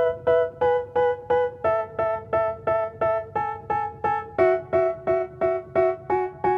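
Background music: a piano-like keyboard playing repeated chords, about three a second, shifting to a lower chord twice.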